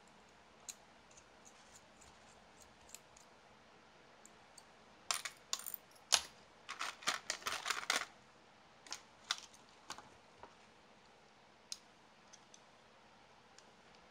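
Small metal hand tools and parts clicking and clinking on a work mat as they are handled, picked up and put down. Scattered single clicks, with a quick run of louder clinks from about five to eight seconds in.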